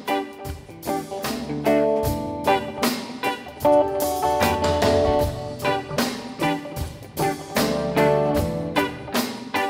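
Live blues-rock band playing an instrumental passage: electric guitars and keyboard over a steady drumbeat.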